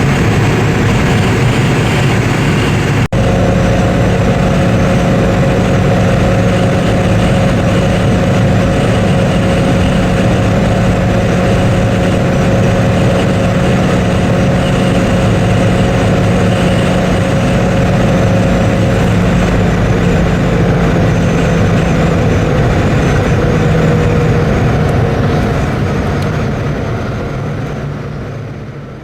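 Peugeot 106's 1.0-litre, 50 hp four-cylinder engine held at steady high revs, with road and wind noise, as the car runs near its top speed. There is a brief break about three seconds in, the pitch sags slightly later on, and the sound fades out near the end.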